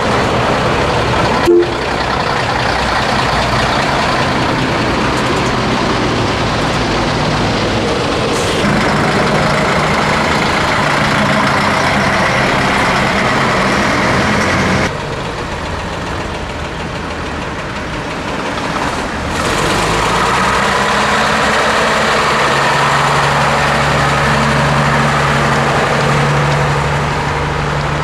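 Vintage Scania diesel lorries driving past one after another, engines running steadily with tyre noise on the road. A short sharp click sounds about a second and a half in.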